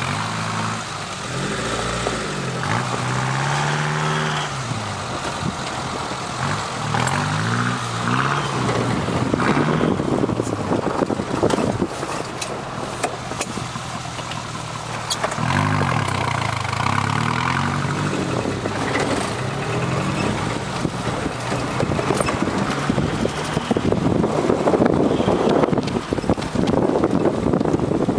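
Four-wheel-drive SUV's engine heard from inside the cabin while driving on a snowy track, revving up and dropping back several times. A rough rushing noise grows louder near the end.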